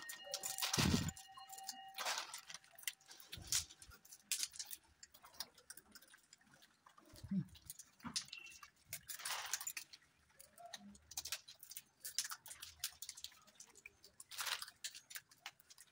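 Scattered small clicks, taps and rustles of peanuts being handled and passed from hand to monkey, with a single louder thump about a second in.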